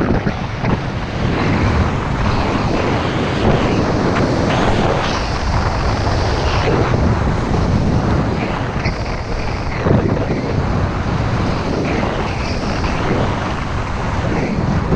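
Wind buffeting the microphone of a camera carried by a skier at speed, a heavy low rumble, with the hiss and scrape of skis carving turns on packed snow coming and going every second or two.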